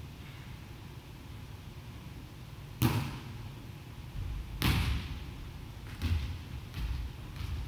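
A volleyball struck hard twice, two sharp slaps about two seconds apart that echo through the gym hall, followed by a few softer thuds.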